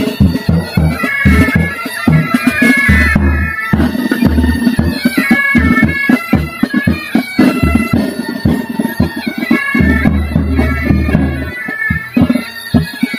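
A military pipe band playing on the march. Highland bagpipes carry the melody over their drones, with side drums and bass drums beating dense, rapid strokes throughout.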